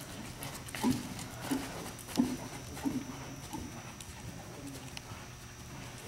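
Hoofbeats of a trotting horse on soft indoor-arena footing: dull, regular thuds about every two-thirds of a second, growing fainter after about four seconds as the horse moves away.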